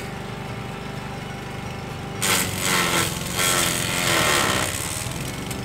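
Masport petrol rotary lawn mower running steadily while a leafy branch is pushed into it; about two seconds in, the blades chew and shred the branch in two loud, rough bursts lasting a couple of seconds, then the engine settles back to its steady running.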